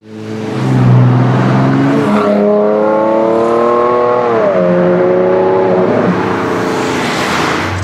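Ferrari Enzo's V12 engine accelerating away, fading in. Its revs climb for about two seconds, then drop sharply with an upshift about four seconds in, and it runs on steadily. Near the end a louder rushing of tyre and wind noise swells as a car passes close.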